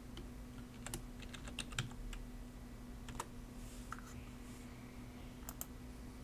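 Faint computer keyboard keystrokes, a few scattered taps as a short folder name is typed, and mouse clicks. A faint steady hum runs underneath.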